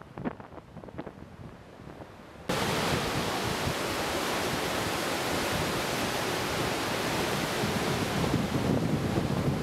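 Ocean surf breaking onto a sandy beach, a steady loud rush with wind buffeting the microphone, starting abruptly about two and a half seconds in; before that only faint wind noise.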